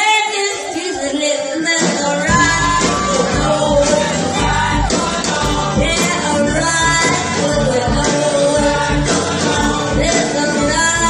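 Live rock-and-roll band playing: electric guitars, drum kit and keyboard. The bass and drums come in full about two seconds in.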